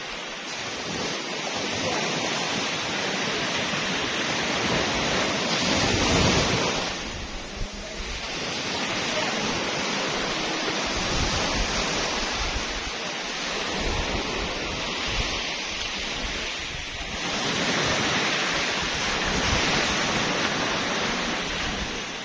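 Surf washing onto a sandy beach, swelling and easing every few seconds, with wind buffeting the microphone.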